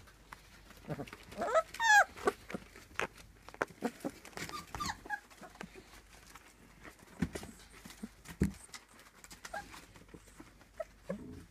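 Young puppies whimpering and letting out short, high squeals that slide up and down in pitch, the loudest about two seconds in. Scattered scratches and taps run between the calls as the puppies scramble over newspaper.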